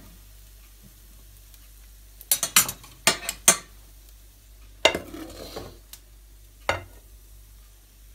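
A metal ladle clinking against a pan and a soup plate as garlic soup is ladled out, in scattered groups of sharp knocks. About five seconds in, a knock is followed by a brief soft pour of soup into the plate.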